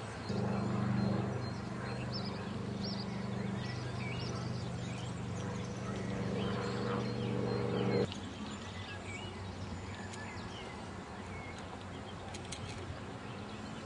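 Birds chirping in short, quick calls throughout, over a steady low drone of several held pitches that runs for about the first eight seconds and then cuts off suddenly.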